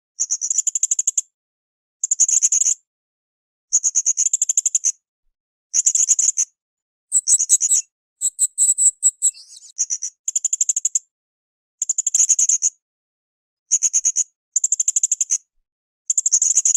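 Blue-crowned hanging parrot (srindit) calling in short bursts of rapid, very high-pitched chirps, one burst about every two seconds. A differently patterned run of notes comes near the middle.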